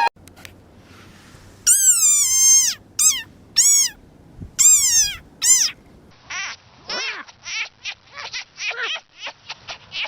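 An animal giving five high-pitched cries that fall in pitch, then a rapid string of many short, quick calls.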